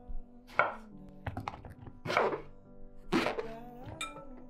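Chef's knife slicing through zucchini onto a wooden cutting board: several sharp cuts, roughly one a second, over faint background music.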